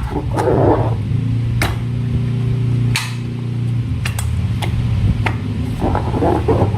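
Slime being worked by hand: wet squishing with sharp clicks, four of them spread through the middle, over a steady low hum.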